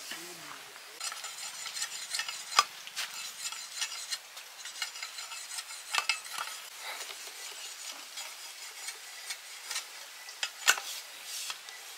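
Food sizzling in a hot pan as it is stirred, with a utensil knocking and scraping against the pan. The sizzle starts about a second in, and there are a few sharp, louder knocks, two of them standing out.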